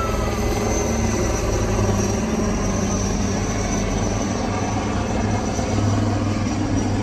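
Two military helicopters flying overhead, their rotors and engines making a steady low drone.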